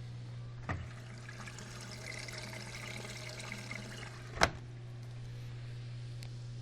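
Samsung WD136 front-load washer-dryer taking in water: a click, about four seconds of water flowing into the machine, then a louder click as the flow stops, over a steady low hum.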